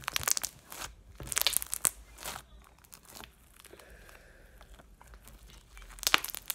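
Crunchy floam-bead slime being stretched and squeezed, crackling and popping as trapped air bubbles burst. There are bursts of crackles in the first two and a half seconds, a quieter stretch, then a loud pop near the end.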